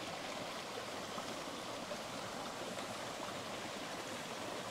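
Running water of a stream: a steady, even rush with nothing else standing out.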